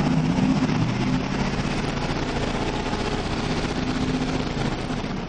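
Four RE Audio MT 18-inch subwoofers in an SUV playing loud, steady bass, heard from outside the vehicle.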